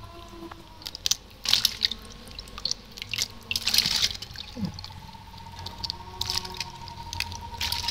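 Water sloshing and dripping in a metal basin as hands clean and pull apart raw blue crabs, with small clicks from the shells and a few louder splashes.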